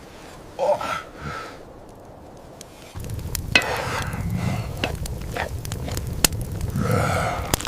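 Campfire crackling with scattered sharp clicks and knocks over a steady low rumble, starting abruptly about three seconds in; the first few seconds hold only faint scattered sounds.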